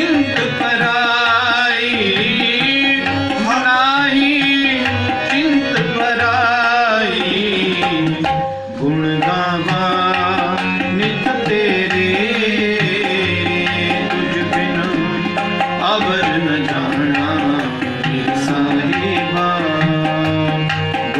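Sikh kirtan on two harmoniums with tabla keeping the beat. For the first several seconds a voice sings a wavering, ornamented line over the harmoniums, and after that harmonium and tabla play on alone.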